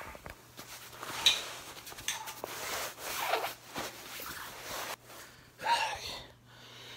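Chest waders rubbing and rustling as they are pulled off, in a string of irregular scrapes, with a louder burst a little before the end.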